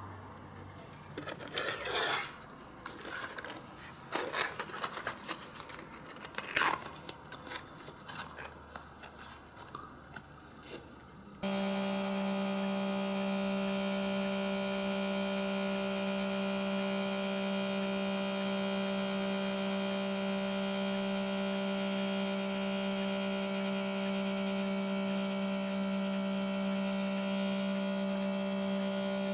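Light clicks and scrapes as a small cardboard toy box and a die-cast model are handled on a cutting mat. About eleven seconds in this cuts to a steady low electrical hum from the motor of a rotating display stand.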